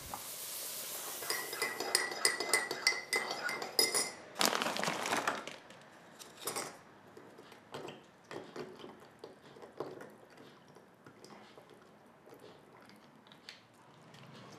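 Breakfast tableware sounds: a metal spoon clinking rapidly against a cup with a ringing tone for about two seconds, then a short rushing noise. Scattered light taps of the spoon against the jar follow as he eats.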